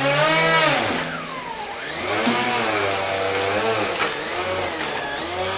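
Motor of a radio-controlled model F-15 jet running as it taxis on its landing gear, its pitch rising and falling repeatedly as the throttle is worked, over a steady high whine.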